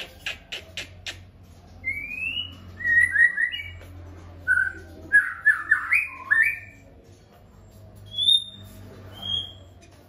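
Caged songbirds calling: a quick run of five sharp chips, then a burst of short whistled notes and slides, and two high, clear whistles near the end.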